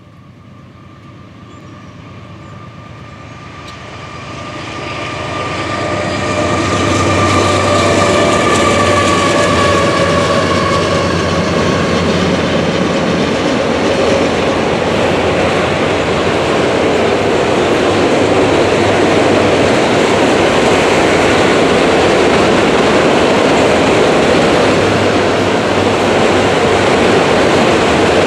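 Loaded autorack freight cars rolling past on the rails with a steady rumble and clatter. The sound grows louder over the first seven seconds and then holds steady, with a few faint high steady tones fading out within the first dozen seconds.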